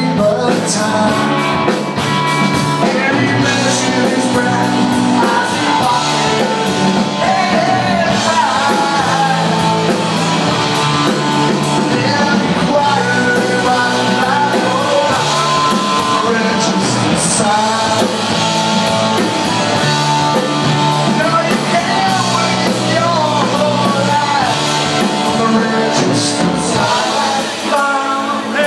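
Rock band playing live with electric guitars, bass and drums, loud and steady, in an instrumental break with a wavering lead guitar line over the band.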